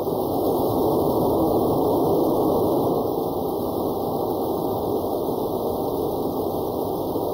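Cummins ISB 5.9-litre 24-valve diesel running steadily with its newly replaced fuel control actuator, heard as an even, muffled drone with no stumbles.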